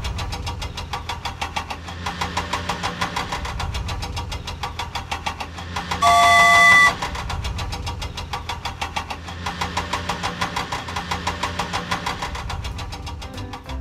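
Cartoon vehicle engine sound effect running with a rapid, even chugging pulse over a low hum. About halfway through comes a loud horn-like blast lasting about a second.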